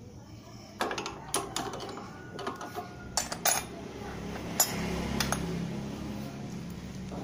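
Sharp metallic clinks and knocks of steel workshop parts being handled, scattered through the first half, followed by a steady low motor hum that starts a little past halfway.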